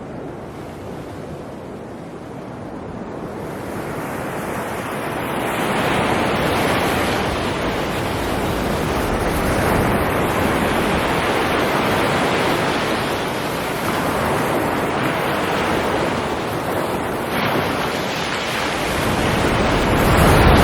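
Sea waves breaking and washing on the shore. The surf builds over the first few seconds, then swells and eases, with a heavier low rumble near the end.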